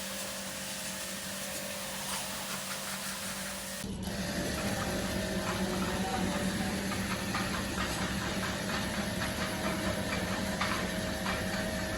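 Refrigeration or air-conditioning unit running with a steady hum and a hiss. It gets louder and busier about four seconds in.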